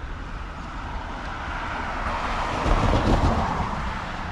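A road vehicle driving past, its tyre and engine noise swelling to a peak about three seconds in and then fading.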